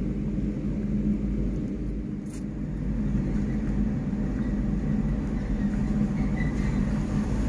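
Truck engine running with a steady low drone.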